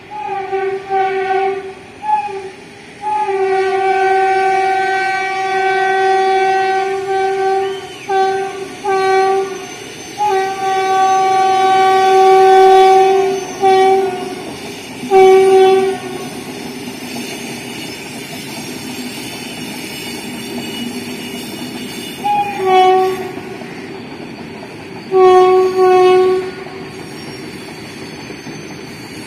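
Freight train locomotive horn sounding again and again, in long held blasts and short toots through roughly the first sixteen seconds, then two more short blasts later on. Under it runs the steady rumble and clatter of the passing freight train.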